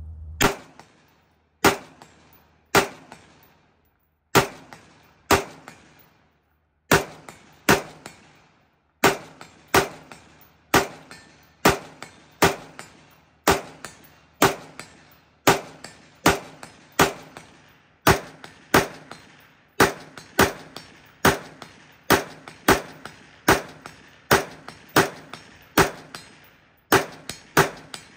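Sons of Liberty Gun Works M4-76, a 5.56 mm AR-15 carbine, fired semi-automatically: about thirty shots at roughly one a second, with a few short pauses. Each sharp crack is followed by a brief echo.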